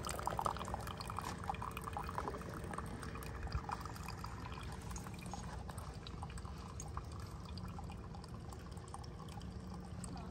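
Single-serve coffee maker dispensing a thin stream of coffee into a ceramic mug, trickling and dripping.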